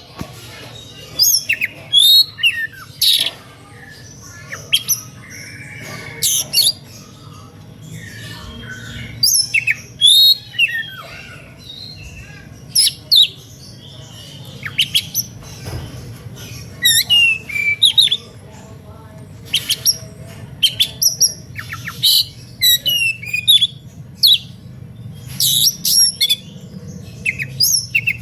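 Oriental magpie-robin (kacer) singing in excited, aggressive 'emotional' play: loud, short bursts of rapid sweeping whistles and chattering phrases, one to two seconds apart, the kind of song meant to provoke rival magpie-robins into answering.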